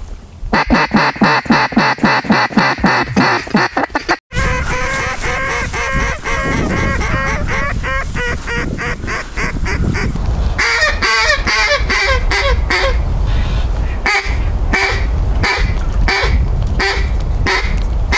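Duck calls blown hard in the loud single-reed style: a fast run of quacking notes, a sudden cut about four seconds in, then more calling over a steady low rumble, ending in a series of separate loud quacks about two a second.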